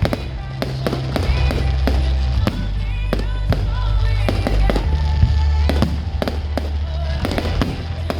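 Fireworks going off in quick succession, many sharp bangs and crackles, over music with a heavy, steady bass.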